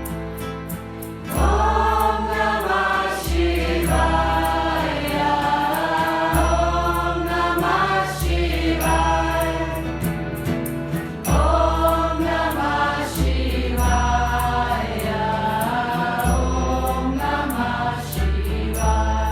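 Mantra chanting in kirtan style: a group of voices sings repeated phrases over a sustained bass line and a steady, light percussion beat.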